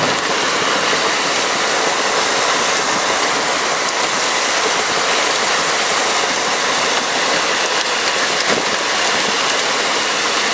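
Heavy rain on a vehicle, heard from inside the cabin as a loud, steady rushing hiss.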